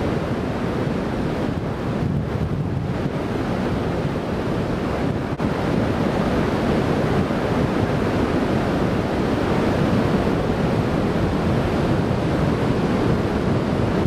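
Steady rush of air over a hang glider in flight, buffeting the wing-mounted camera's microphone.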